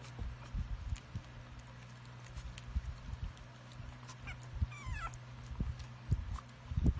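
Jack Russell puppy giving a short high whimper that falls in pitch, a little past halfway, amid soft bumps and small clicks from the puppies being handled at the milk bowl.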